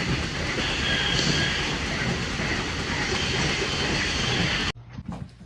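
Steady rumbling noise, like a moving train or vehicle, that cuts off suddenly about four and a half seconds in, leaving quieter room sound with a few small knocks.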